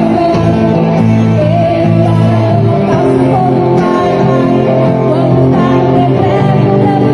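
A band playing a song: guitar and bass with a singing voice over them, loud and steady.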